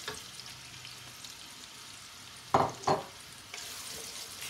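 Sliced onions sizzling in hot oil in a metal pot as they are stirred with a wooden spoon. Two sharp knocks about two and a half seconds in.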